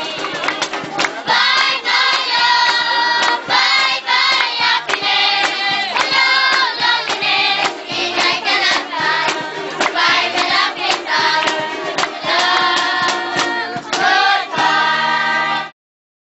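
Dance music with a group of voices singing over accompaniment; it cuts off suddenly near the end.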